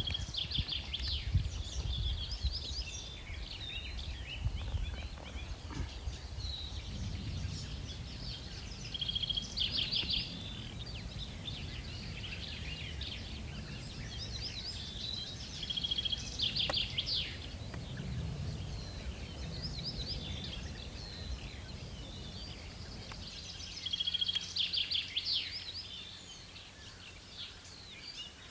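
A songbird singing four times: each phrase is a short steady whistle followed by a quick trill, repeating every six to nine seconds. A low rumble sits under it and drops away near the end.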